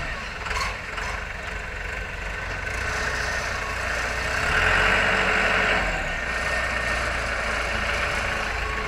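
Lehman ZL936 wheel loader's diesel engine working as the bucket digs into a sand pile and the machine backs away. The engine gets louder for a couple of seconds about halfway through.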